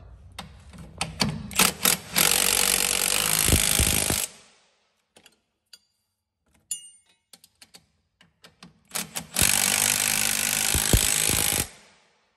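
Milwaukee cordless impact wrench hammering in two bursts of about two seconds each, the first around two seconds in and the second near the end, each starting with a few short trigger blips and cutting off sharply. It is tightening the bolts that hold the new strut to the knuckle, with light tool clicks in between.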